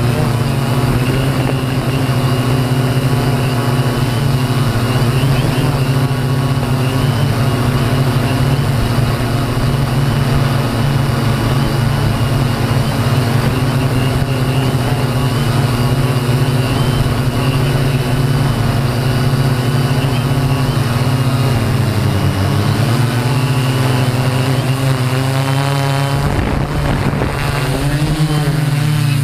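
Align M480 multirotor's electric motors and propellers buzzing steadily in flight, heard from the onboard camera. The pitch dips and wavers about three quarters of the way in, then again near the end, as the motor speeds change.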